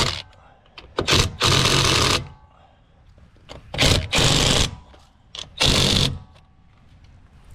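Impact wrench running lug nuts onto a trailer wheel in several short bursts of about half a second each, with pauses between.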